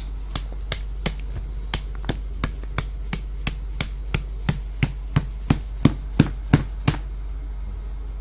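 A hard object struck over and over: sharp, evenly spaced knocks about three a second, growing louder until they stop suddenly about seven seconds in.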